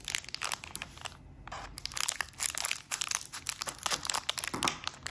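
A bag of small toy figures crinkling and rustling in dense, irregular crackles as it is handled.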